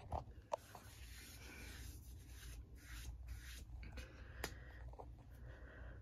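Faint rubbing and scraping with a few sharp clicks, over a steady low hum: handling noise from the hand-held recording device.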